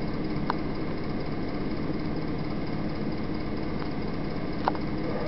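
Steady low hum and hiss of a video recording's background noise, with two short clicks: one about half a second in and a sharper one near the end.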